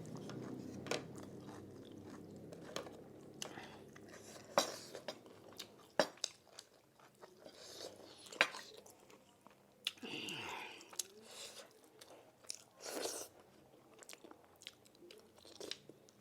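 A person chewing and biting food close to the microphone, with irregular sharp crunches and wet mouth clicks.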